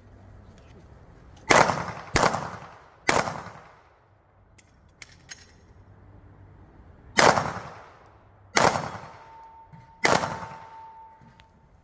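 Six pistol shots in two strings of three, each shot trailing off in an echo. The first three come close together, and the second three are spaced more slowly, a few seconds later. A faint steady tone sounds near the end.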